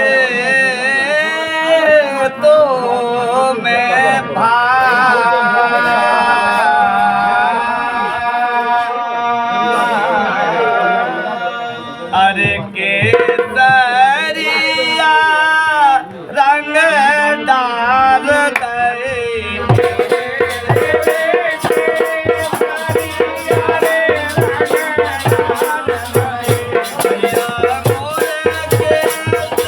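Desi phag folk music: a drawn-out melodic opening line with sliding, wavering pitch, then about two-thirds through a fast, even percussion rhythm of drum and rattling jingles comes in under the melody.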